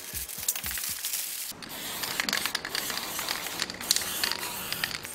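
Aerosol spray can of black paint hissing as it coats an engine block. The spraying starts about a second and a half in and runs in a few long passes with short breaks.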